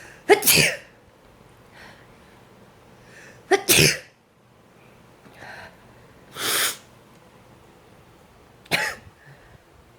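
A woman sneezes several times in a row, set off by sneeze powder snorted into both nostrils. There are loud sneezes about a second in and just before four seconds, a breathier burst a little after six seconds, and a short sneeze near the end.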